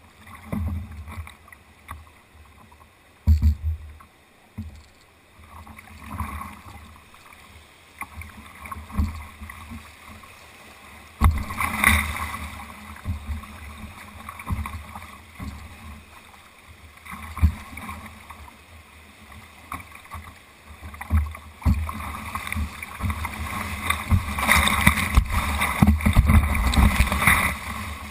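Kayak running brown whitewater rapids: rushing water and splashing, with irregular low thumps of water striking the boat and camera. The rapids grow loudest about twelve seconds in and again near the end.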